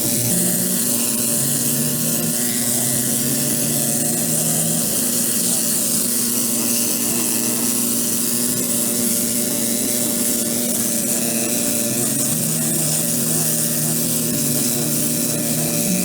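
A motor-driven tool running steadily, with a strong high hiss and a constant hum.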